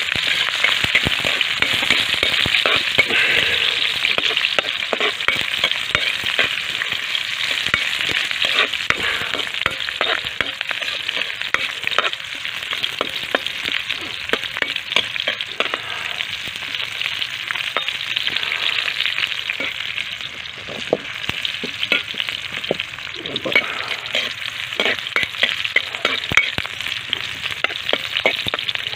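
Garlic and onions sautéing in hot cooking oil in a pan: a steady sizzle, with frequent clicks and scrapes of a spatula stirring against the pan.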